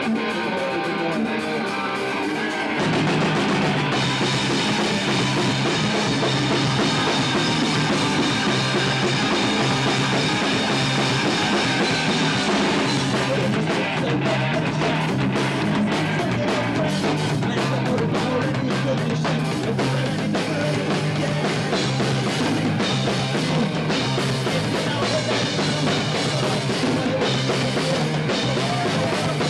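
Live punk rock band playing: strummed electric guitar alone at first, then drums and bass come in about three seconds in and the full band plays at a steady driving beat.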